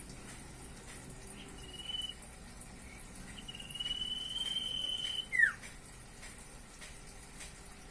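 Common iora (cipoh) singing: a short held whistle about two seconds in, then a long steady whistle lasting nearly two seconds that ends in a quick falling note.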